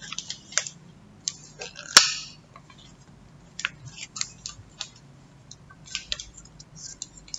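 A package being handled and opened for unboxing: scattered crinkles and clicks of its wrapping, with one loud sharp crack about two seconds in.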